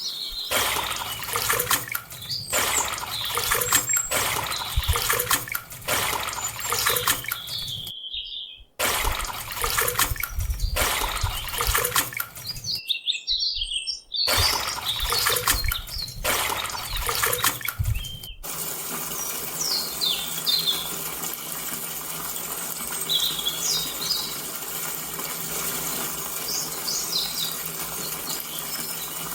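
Running water, cut off abruptly twice, then a steadier, softer flow about two-thirds of the way in, with birds chirping over it.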